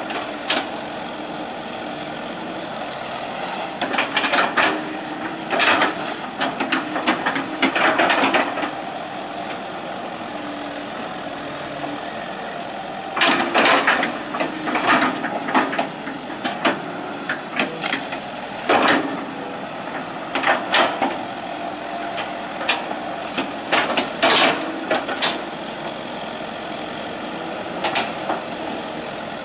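Hitachi EX120 excavator's diesel engine running steadily, with repeated spells of loud knocks, clanks and hiss as the machine works.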